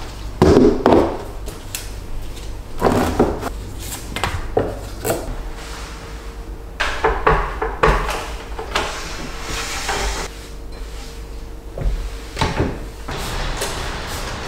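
Household clatter of a wooden high chair and its tray being handled and wiped down: irregular knocks and bumps of wood, the loudest about half a second in and again near the end, with a faint steady hum in the background for part of the time.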